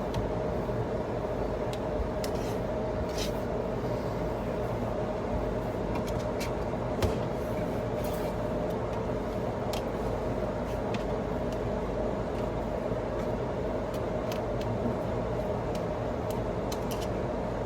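Steady mechanical rumble with a hum, with scattered light clicks and a sharper knock about seven seconds in.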